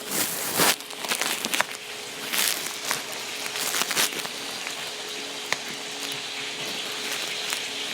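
Daing na bangus (dried milkfish) frying in hot oil: a steady sizzle with crackles and several sharper spits in the first few seconds.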